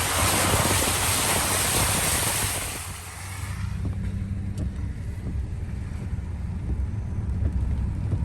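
Car driving through standing floodwater: a loud rushing hiss of water spraying up under the car, which stops about three seconds in and leaves the steady low hum of the car heard from inside the cabin.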